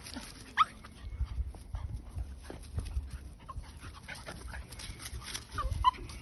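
Two puppies play-fighting: short high yelps, one rising sharply about half a second in and another near the end, with small scuffling sounds between.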